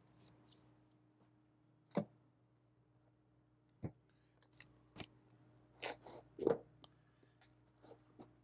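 Faint handling of vinyl record sleeves: scattered soft knocks, taps and rustles as records are picked up and set down, several bunched a little past the middle, over a faint steady hum.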